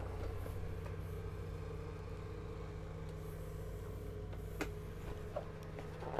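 Pages of a glossy booklet being handled and turned, with soft paper rustles and a couple of short clicks in the second half, over a steady low hum.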